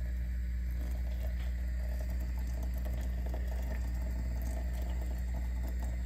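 Just-boiled water being poured slowly from the large kettle of a stainless-steel Turkish double teapot (çaydanlık) into the small brewing pot over the tea leaves: a steady pouring splash.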